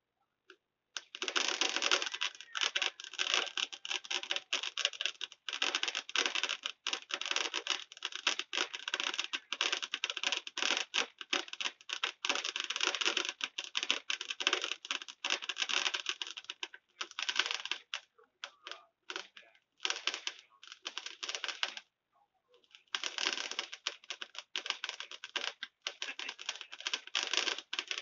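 Fireworks crackling: a dense run of rapid sharp pops and snaps, with a couple of short breaks about two-thirds of the way through.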